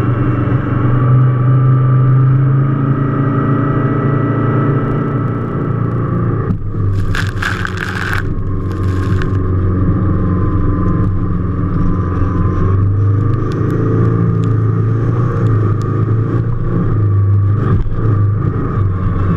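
Powerboat engine running at speed, a loud steady drone heard from the open cockpit, with two short bursts of rushing noise about seven and nine seconds in.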